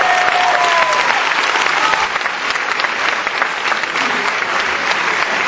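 Audience applauding, a dense steady clapping, with a few higher drawn-out tones over it in the first two seconds.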